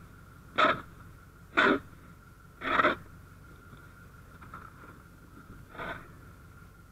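Snow shovel chopping and scraping into hard-packed snow around a stuck truck's wheel: three short strokes about a second apart, then a fainter one near the end.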